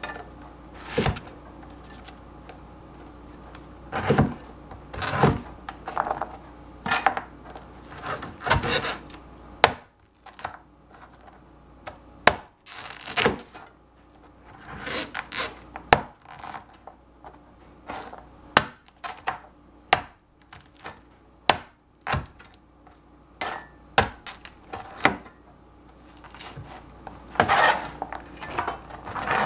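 Chinese cleaver chopping bread on a plastic cutting board: irregular knocks of the blade against the board, with rubbing and scraping as the pieces are gathered together near the end.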